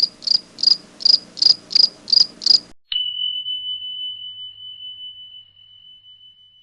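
Synthetic alert sound effect: a run of about eight quick high pulses, about three a second, then a sharp strike and a single high pure tone that rings on and fades away.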